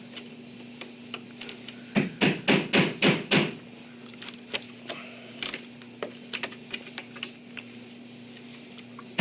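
A quick run of about six sharp hammer blows about two seconds in, then lighter scattered taps: chiseling out the wooden door jamb to make room for the strike plate.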